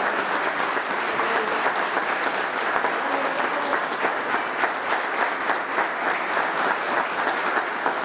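Audience applauding steadily, with many hands clapping.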